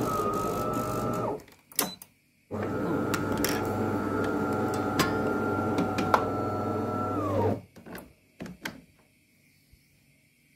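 De'Longhi Magnifica Evo espresso machine's pump buzzing steadily in two runs, a short one and then one of about five seconds, as it pushes hot water through the spout after being switched on, typical of its start-up rinse. A few sharp clicks follow as the milk carafe is fitted.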